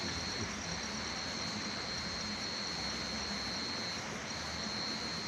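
An insect's continuous high-pitched buzz, breaking off briefly twice, over a steady even rushing noise.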